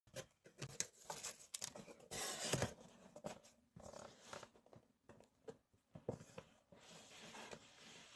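Scattered small clicks, taps and rustling, with a louder rustle about two seconds in.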